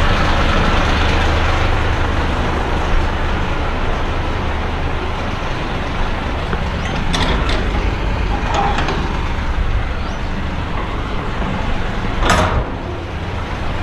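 Truck running on the road, a steady low engine hum with even road noise. A few short sharp sounds cut through, the loudest about twelve seconds in.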